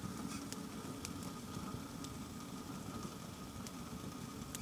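Wood fire in a small camp stove under a steel pot, burning with a steady low roar and a few sharp crackles of the burning sticks.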